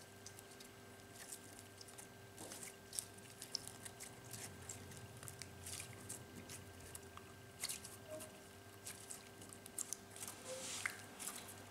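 Clear slime being stretched, folded and squeezed by hand: soft squelches with irregular sticky clicks and small pops, a few louder than the rest, over a faint steady hum.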